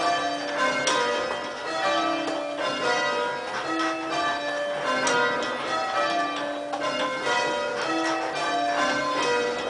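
Church tower bells rung full-circle by hand on ropes, a steady overlapping sequence of bell strikes.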